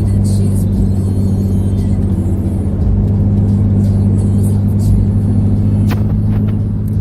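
Inside a moving car's cabin: a steady, loud low drone of engine and road noise while driving.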